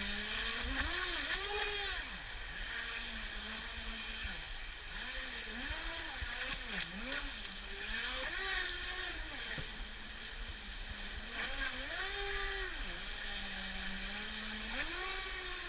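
Radio-controlled boat's motor whining, its pitch rising and falling again and again as the throttle is opened and eased off, at times settling into a steady lower hum.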